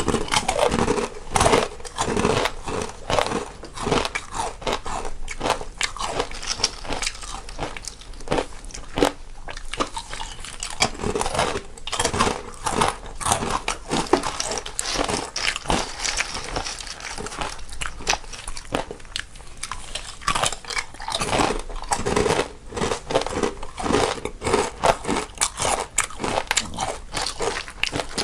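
Two people crunching on crisp snacks, with irregular crunchy bites and chewing, one eater panned to the left and one to the right.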